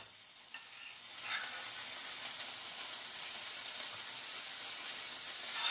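Pancakes sizzling in a hot frying pan: a steady frying hiss that picks up slightly about a second in.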